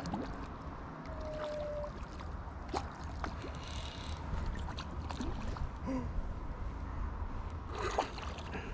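Steady low wind rumble on the microphone, with small waves lapping at the shore. Scattered light clicks and rustles run through it, a cluster of them the loudest, near the end.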